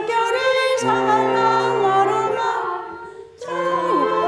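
A group of women singing a Korean children's song together in unison, accompanied by a pump organ holding steady chords underneath. There is a short break between phrases about three seconds in, then the singing and organ start again.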